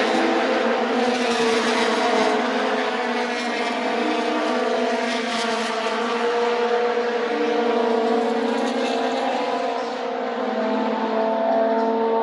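Vintage Formula 2 racing cars' four-cylinder engines running at high revs, several engine notes heard together, steady with small rises and falls in pitch.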